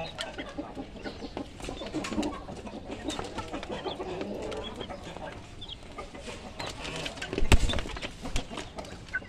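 Young chickens clucking and calling while they peck at chopped greens, with quick pecking taps throughout. A single loud thump comes about seven and a half seconds in.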